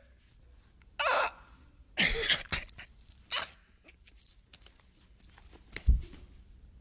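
A man making short, barking, dog-like noises with his voice, four or five yelps in quick succession, followed by a single low thump near the end.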